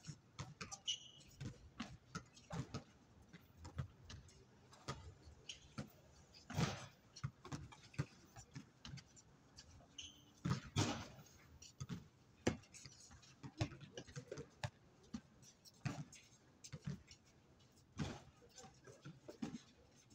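Basketball bouncing on a hard outdoor court, irregular dull thumps from dribbling and play, a few of them louder.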